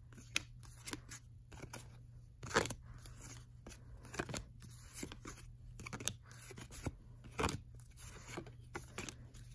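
A stack of cardboard baseball cards being flipped through by hand, each card slid off the pile with a short papery swish or flick, irregularly, about one a second, a couple of them louder than the rest.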